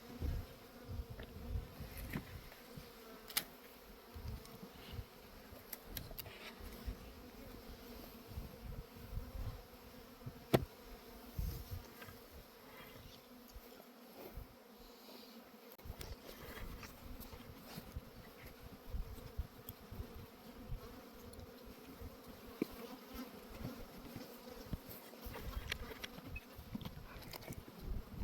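Honeybees buzzing steadily around an opened nucleus hive, with scattered clicks and knocks from handling the hive. One sharp click comes about ten seconds in.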